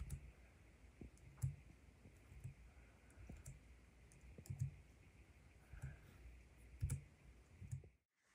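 Keys of a Logitech low-profile keyboard pressed one at a time, giving faint, separate clicks at an unhurried, uneven pace of about one a second.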